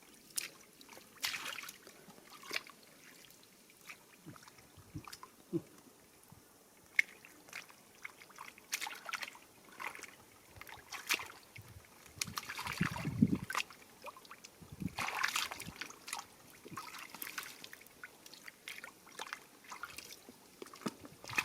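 Water sloshing and trickling in irregular short splashes and drips, with a few louder splashes in the middle.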